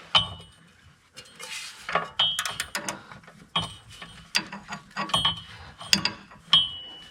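Ratchet wrench clicking in short runs of strokes with brief pauses between, turning a newly fitted oxygen sensor into the truck's exhaust.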